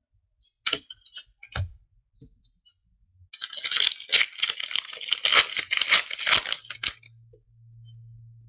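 Wrapper of a 2015-16 O-Pee-Chee hockey card pack being torn open, crackling for about three and a half seconds, after a few light clicks of cards being handled and set down.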